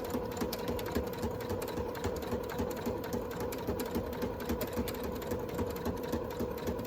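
Electric sewing machine running steadily, its needle stitching fast and evenly along the side seam of a faux leather envelope, a constant motor hum under a quick run of ticks.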